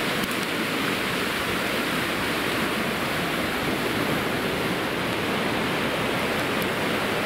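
Steady rushing of a flooded river in spate, its fast brown water surging over and past its banks.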